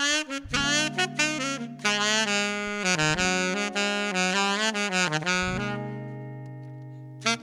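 Instrumental music with a saxophone playing the melody over sustained low chords; the phrase fades away about two thirds of the way through and a new one starts at the very end.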